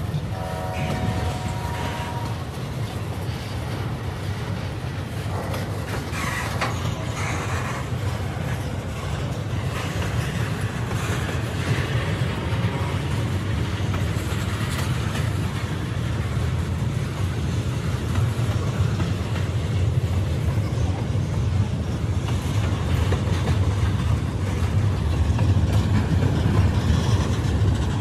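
Freight train of covered hoppers and tank cars rolling slowly past, a steady low rumble with faint wheel clicks, growing slightly louder toward the end. A brief squealing tone sounds near the start.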